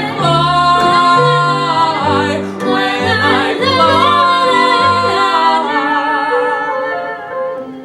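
Musical-theatre duet: two singers holding long notes with vibrato over instrumental accompaniment, growing quieter near the end.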